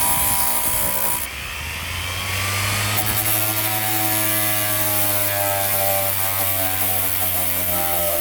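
Power sander running on a car's steel body panel, a steady motor hum with the hiss of abrasive on metal, its pitch wavering slightly with the load.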